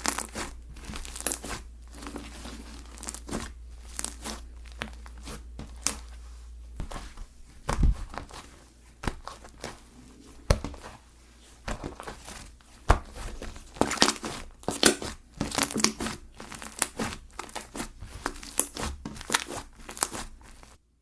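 Slime being worked by hand, giving off dense, irregular crackles and pops.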